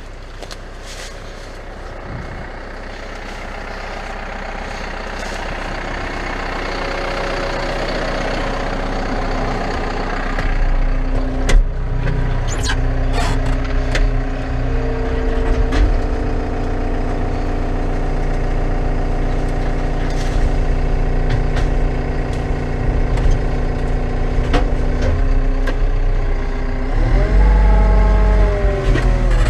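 CAT 924F wheel loader's diesel engine building up over the first ten seconds and then running hard and steady, with scattered sharp knocks and cracks through the middle. Near the end the engine pitch swings up and down.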